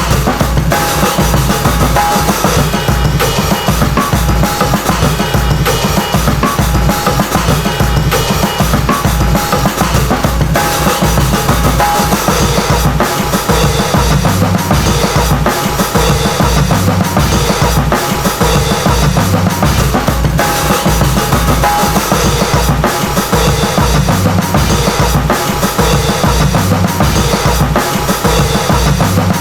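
Instrumental hip-hop track driven by a dense, steady drum-kit beat of kick, snare and rimshot, over a low bass line.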